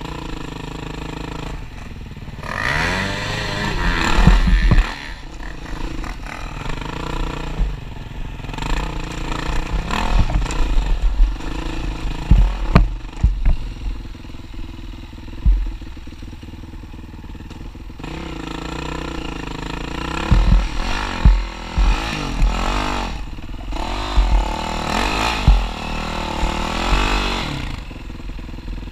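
Yamaha WR450F single-cylinder four-stroke dirt bike engine revving up and down in repeated bursts while riding a rough trail. Knocks and clatter from the bike over the ground come in among the revs.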